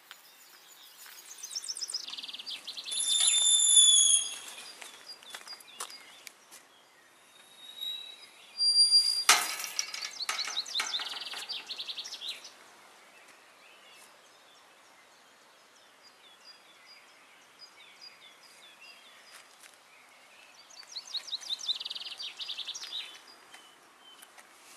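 Songbirds singing outdoors: a fast, high descending trill repeats three times about ten seconds apart, mixed with a few clear whistled notes and one loud sharp call.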